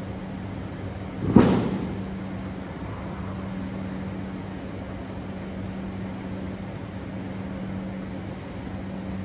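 A steady machine hum runs throughout. A single sharp thump comes about a second and a half in and is the loudest sound.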